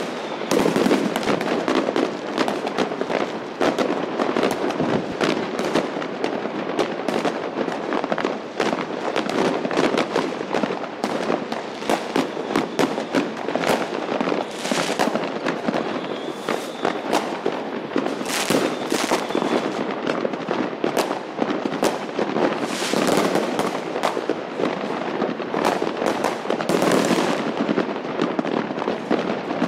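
Many fireworks and firecrackers going off at once across a town: a dense, unbroken crackle of bangs and pops, with louder bursts now and then.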